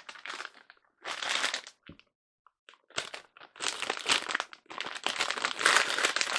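Crinkling and rustling of something handled close to the microphone, in irregular bursts that grow denser and louder from about three seconds in.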